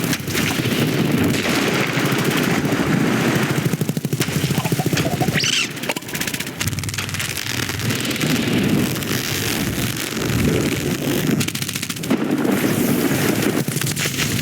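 Film sound effects of heavy rain at insect scale: giant raindrops pounding down in a dense, rapid run of thuds, easing briefly about six seconds in. A short high sliding sound cuts through about five seconds in.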